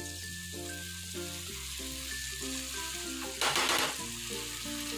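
Shredded cabbage and onion sizzling in a frying pan over a gas flame, with a brief louder burst of noise about three and a half seconds in. Background music with a slow melody plays throughout.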